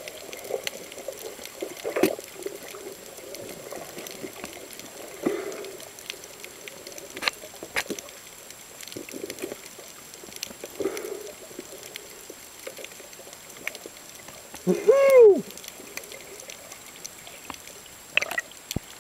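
Underwater sound picked up by a camera below the surface: a low watery rush that swells now and then, with scattered sharp clicks and crackles. About three quarters of the way through, a single loud, short tone rises and falls in pitch.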